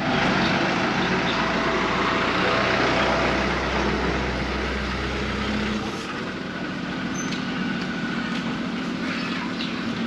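Outdoor market and street ambience: a steady rumble and hiss that drop away about six seconds in, leaving a lower, steadier hum with faint voices.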